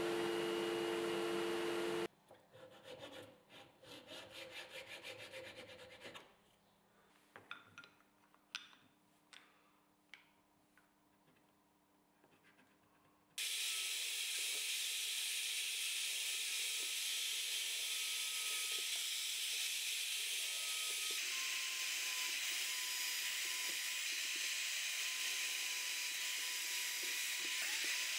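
A table saw running for about two seconds and cutting off abruptly, then several seconds of faint clicks and light handling of small HPL pieces. About halfway through, a bench drill press starts drilling a small HPL plate and runs steadily with a thin whine to the end.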